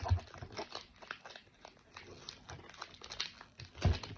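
Crinkling and rustling of Pokémon booster pack foil and cards being handled, in short irregular crackles, with two dull thumps, one at the start and one near the end.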